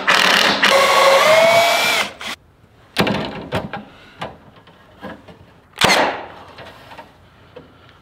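Cordless drill running for about two seconds, its pitch rising slightly as it drives into the wooden frame. Then a couple of sharp knocks and light rattling as welded wire mesh is laid on the frame.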